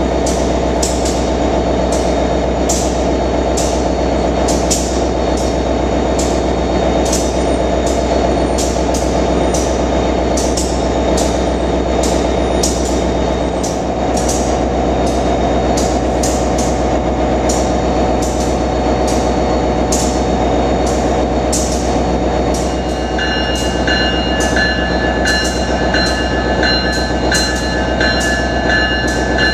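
Amtrak AEM-7 electric locomotive standing with its equipment running: a steady machine hum with rapid, uneven ticks over it. About three-quarters of the way through, its electronic bell starts ringing over and over, as it does just before the train moves off.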